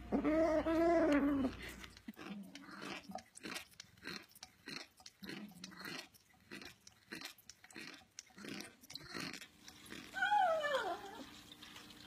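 A cat's drawn-out call at the start, then several seconds of a cat chewing with quick crunching clicks, and a single falling meow near the end.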